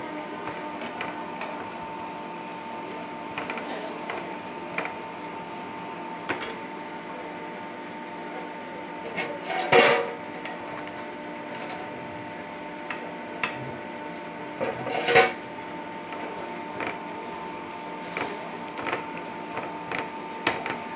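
Perforated skimmer spoon scraping and clinking against a pan of frying onions that are nearly browned, with two louder clatters about ten and fifteen seconds in, over a steady hum and hiss.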